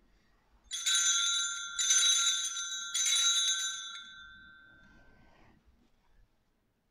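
Altar bell (sanctus bell) rung three times about a second apart, each a bright ringing strike, the last dying away over a couple of seconds. It marks the elevation of the chalice just after the consecration.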